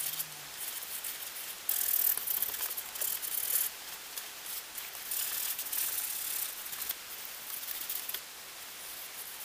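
Paintbrush scrubbing paint onto cardboard: hissy, scratchy strokes, in two longer spells about two and five seconds in, then shorter strokes.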